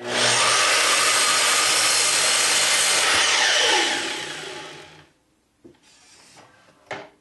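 Sliding miter saw started and cutting through a 2-by-3 construction-lumber board, the motor running loud and steady. A little under four seconds in, the cut ends and the motor winds down with a falling whine, dying out about a second later.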